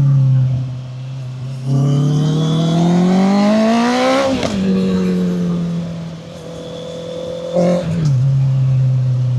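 2014 Honda CB650F inline-four running through its custom exhaust, built from a 2025 CBR650R system with a made-to-measure muffler. The engine holds a steady note, then climbs steadily for about two and a half seconds, drops sharply at an upshift and eases off slowly. Near the end a brief rise in revs is followed by another drop.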